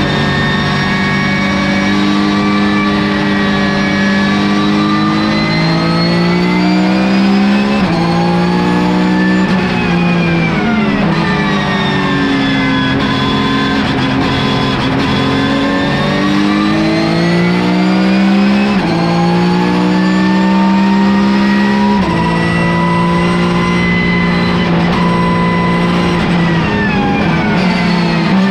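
Porsche 991 GT3 Cup race car's flat-six engine, heard from inside the cockpit at racing speed. It climbs in pitch through the gears with a sudden drop at each upshift, and winds down in long falls under braking before pulling up again.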